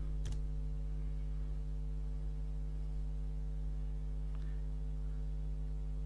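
A steady low electrical hum under the recording, with one sharp click just after the start and a faint tick about four seconds later.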